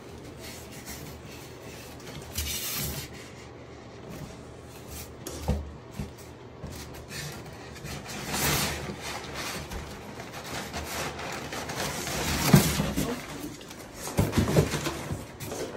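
Rustling and rubbing of cloth wrapping and a cardboard box as gloved hands rummage inside it. It comes in several separate bursts, with a couple of short knocks about five and a half seconds in.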